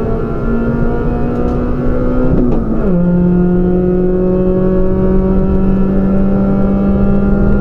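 Citroën Saxo VTS race car's four-cylinder engine pulling hard under full throttle, heard from inside the cockpit. About two and a half seconds in its pitch drops sharply at an upshift, with a brief click, then climbs slowly again as the car accelerates.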